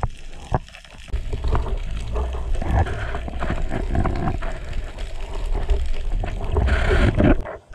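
Underwater sound at a speargun-mounted camera: a steady low water rush with many small clicks and knocks as a speared dentex is gripped and handled along the gun's shaft. It turns briefly brighter and hissier near the end.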